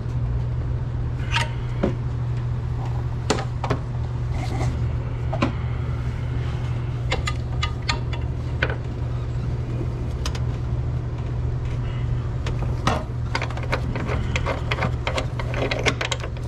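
Scattered clicks and knocks of a steel bar and bolt against the engine mount bracket as the engine is pried over to line up the mount's bolt hole, over a steady low hum.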